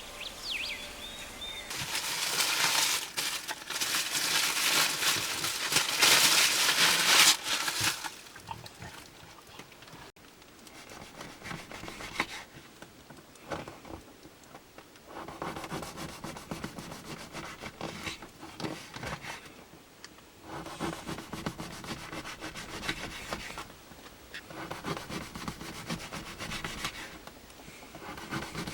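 A bulldog snoring: a run of long, noisy breaths a few seconds apart, the loudest about two to eight seconds in.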